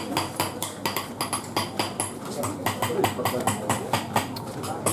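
Rapid, even hammering on metal, about five light strikes a second, each with a short metallic ring. Voices of passers-by sound faintly underneath.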